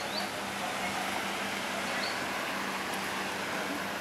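Steady outdoor ambient noise with a faint steady hum underneath and a few faint, short, high rising chirps about two seconds apart.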